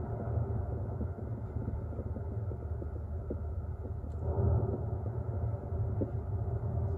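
Deep, continuous rumble of the La Palma volcano erupting, swelling about four and a half seconds in.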